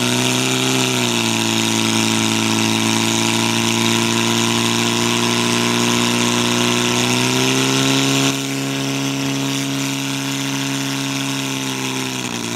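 Portable fire pump's engine running at high speed, driving water out through the hoses: a steady, even drone. Its pitch dips slightly about a second in and rises again shortly before eight seconds, it gets a little quieter soon after, and the pitch starts to fall at the very end.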